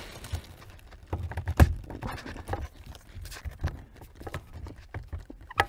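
Irregular clicks and knocks of a screwdriver levering and tapping at a plastic hose-retaining clip on a heater core's pipes, kicking the clip loose. A cluster of knocks comes about a second in and a sharper knock near the end.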